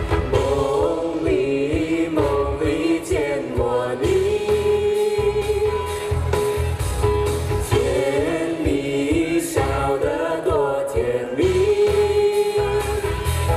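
A live pop vocal group of two men and a woman singing a medley of classic Chinese pop songs through microphones, over amplified backing music with a steady, heavy beat.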